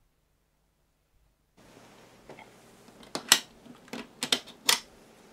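Silence at first, then faint room hiss and a quick run of about six sharp clicks from a computer mouse at a desk.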